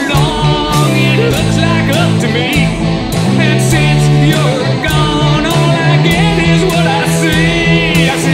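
A song with guitar and sung vocals over a steady bass line.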